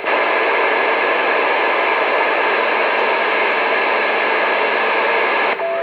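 Steady hiss of static from a radio receiver with no transmission coming through, cutting off suddenly near the end.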